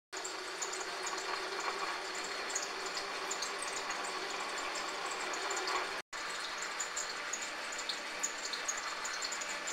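Metal lathe running, with a twist drill boring out the centre of a metal wheel hub: a steady hiss with faint scattered high ticks. After a brief break about six seconds in, the same steady running continues as a reamer sizes the bore for bronze bushes.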